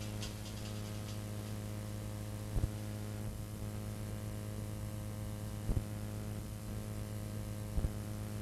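Steady electrical mains hum with a faint hiss from a blank stretch of old videotape, broken by three brief faint clicks.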